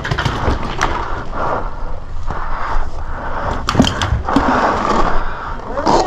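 Scattered sharp pops of paintball markers firing, a few close together a little over halfway through, over the scuffing and rustling of a player moving on the field.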